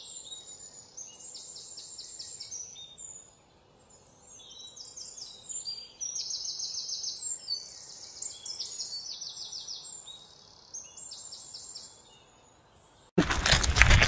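Forest birds singing in short, rapid trills, one after another, with a faint background hiss. About a second before the end, a loud, rough noise starts abruptly.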